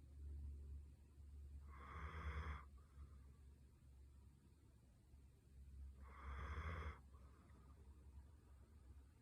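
Faint, slow snoring: two long, rasping snore breaths about four seconds apart.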